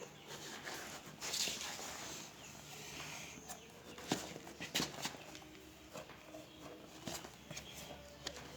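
Chickens calling on a poultry farm, with shuffling footsteps and a few sharp knocks about four and five seconds in.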